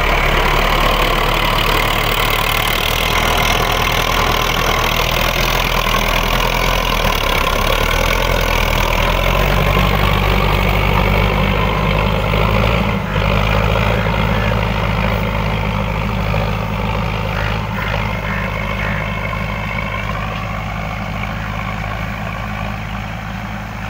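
Diesel farm tractor engine running steadily under load while pulling a mounted reversible mouldboard plough through the soil. Its note shifts about nine seconds in, and it grows gradually fainter over the second half as the tractor moves away.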